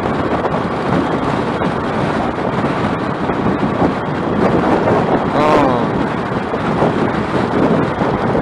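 Strong wind buffeting the microphone over steady vehicle and road noise while on the move in typhoon winds. A brief voice sounds about five and a half seconds in.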